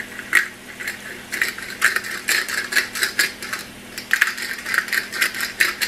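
Pepper mill being twisted over a pan, grinding peppercorns in a quick, irregular run of sharp crunching clicks.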